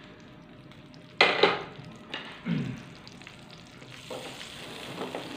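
Wooden spoon knocking and scraping against a metal karahi while stirring melting ghee, with two sharp knocks about a second in and further scrapes after. From about four seconds in, a faint sizzle rises as the ghee heats.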